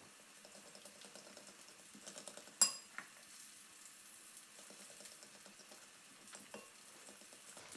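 A fork stirring beaten eggs and grated pecorino in a glass bowl, with a bright, ringing clink of metal on glass about two and a half seconds in and a smaller one just after. A faint sizzle of guanciale rendering in a pan runs underneath.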